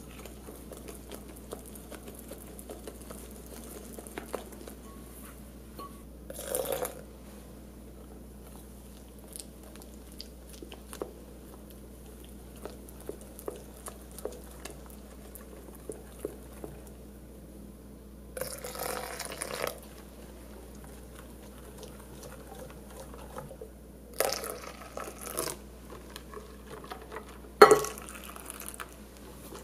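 Wire whisk mixing a thick egg-yolk, sugar and flour batter in a glass bowl: light ticks and scrapes of the wires against the glass, with a few louder stretches of brisk whisking. Near the end comes a sharp clink, then milk being poured in.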